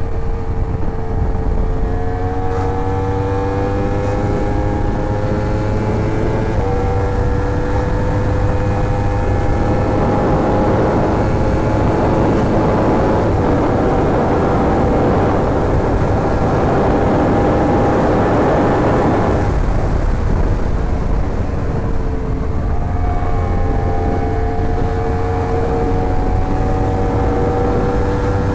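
Yamaha R1 inline-four sportbike engine under way at a steady cruise, its pitch climbing slowly, with heavy wind rush on the rider's microphone that swells in the middle and cuts off sharply about two-thirds of the way through. The engine pitch then drops and climbs again.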